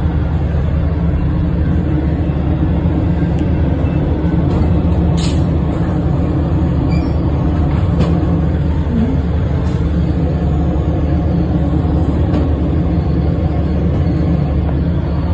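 Steady low running rumble of a moving passenger vehicle heard from inside, with a few faint clicks and squeaks.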